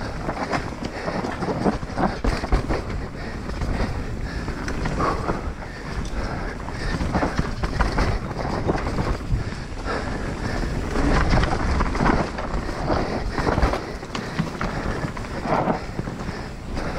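Mountain bike descending a dirt and rock trail at speed: tyres rumbling and scrabbling over the ground, with frequent knocks and rattles from the bike over bumps, and wind buffeting the microphone.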